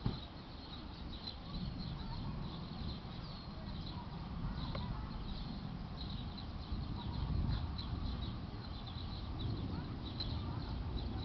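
Small birds chirping repeatedly in short, high, irregular notes over a steady low rumble that slowly grows louder.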